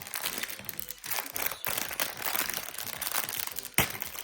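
Small plastic bag of mounting screws crinkling as it is handled, with a sharp click near the end.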